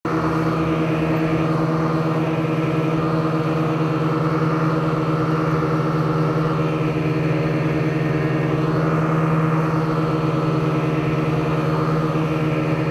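An engine running steadily at a constant speed, a droning hum that holds one pitch throughout.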